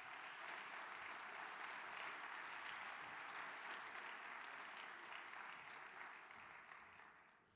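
Audience applauding steadily and fairly faintly, tapering off near the end.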